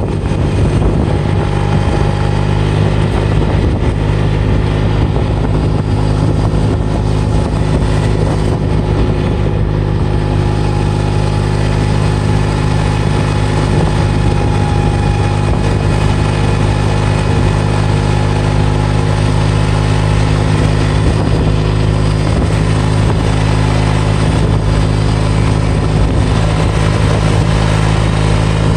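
Engine of a Kubota running steadily at a constant speed, with the rumble and hiss of the ride on a gravel road.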